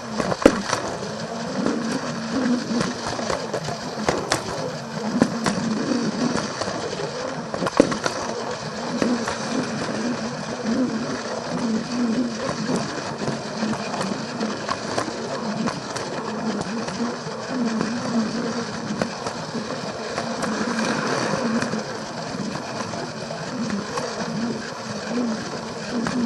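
Battery-powered Plarail toy train running on plastic track, its small motor and gearbox whirring while the wheels click over the rail joints.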